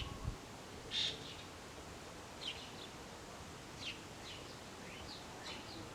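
Small birds chirping: short, high, downward-sweeping calls every second or so, the loudest about a second in, over a faint steady hiss of wind.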